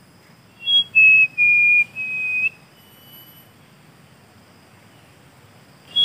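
A man whistling a short phrase of clear, steady notes, a brief high note followed by three longer, lower held notes, then a faint single note; a whistled bird call used to lure birds.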